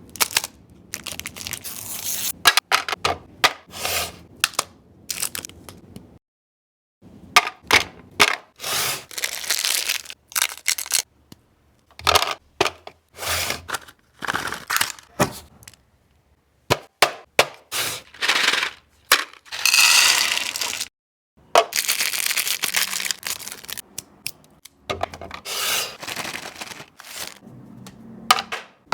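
Chocolate bars and candies being snapped and crunched in close-up: quick, irregular runs of sharp cracks and crisp breaking, with a few moments of dead silence in between.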